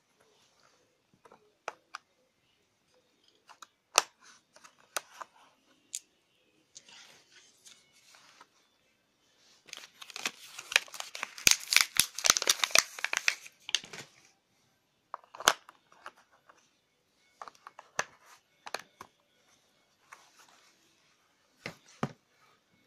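Paper and plastic packaging being handled, with a dense spell of crinkling and tearing in the middle. Scattered sharp clicks and taps of hard plastic come before and after it.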